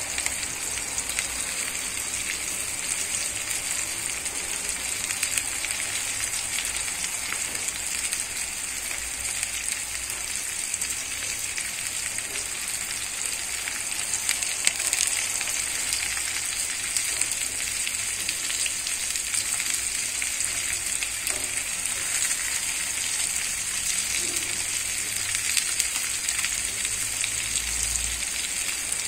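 Small cornflour-coated fish frying in hot oil in a pan: a steady sizzle with many fine crackles as more fish are laid into the oil.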